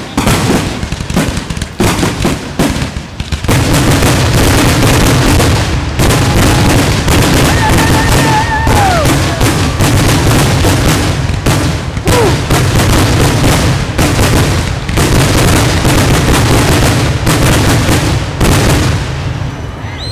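Loud fireworks barrage of aerial shells bursting and crackling. Scattered reports build into a dense, nearly continuous volley about three and a half seconds in.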